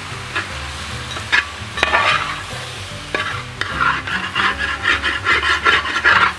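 Turkey pieces being stirred into sizzling masala in an uruli: a spatula scrapes through the meat and clicks against the pot a few times. The scraping comes in quick uneven strokes that grow busier in the second half.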